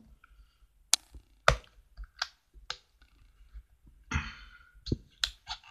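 Small plastic clicks and snaps from an Olympus mju II compact film camera as a CR123A battery is pushed into its compartment and the battery door is closed. There is a brief rustle of handling about four seconds in, followed by a few more clicks.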